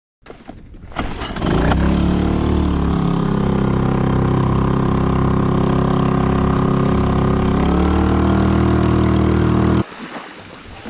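Small two-horsepower outboard motor on a compact kayak running. It builds up over the first second or so, settles to a lower pitch a couple of seconds in, and rises again near the end before cutting off abruptly.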